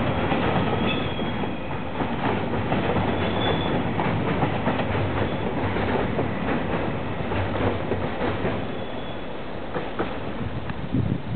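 Freight train's container wagons rolling past on the track, steel wheels clicking steadily over rail joints, with a couple of brief high wheel squeals in the first few seconds. The sound eases a little as the end of the train passes, but the clicking and rumble carry on.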